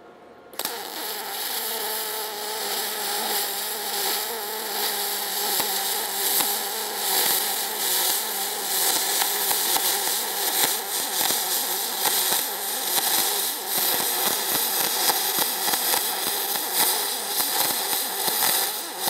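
MIG spool-gun arc welding aluminum with .030 wire: the arc strikes about half a second in and then runs as a steady, dense crackling buzz.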